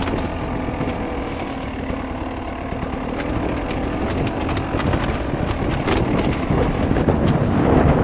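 Beta RR 300 two-stroke enduro motorcycle engine running as the bike is ridden over a rough dirt trail, growing louder in the second half. Short clicks and knocks from the rough ground run through it.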